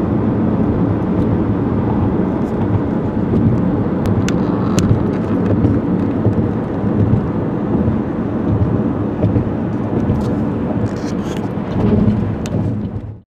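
Deep, steady noise with scattered faint crackles. It fades in at the start and cuts off abruptly near the end.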